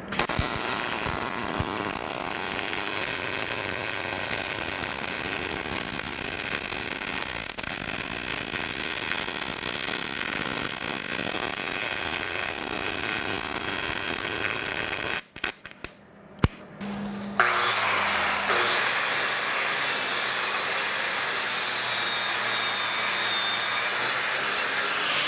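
Wire-feed (MIG) welder laying a long bead on steel, a steady crackle that stops about 15 seconds in. After a short pause and a click, an angle grinder starts and runs steadily with a high whine for the rest of the time.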